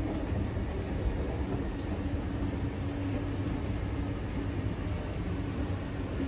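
Escalator running, a steady mechanical hum over a low rumble as it carries riders down.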